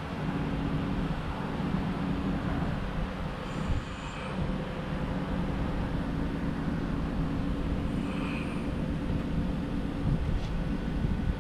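Steady low mechanical rumble with a constant low hum, and two short high chirps, about a third of the way in and again past the middle.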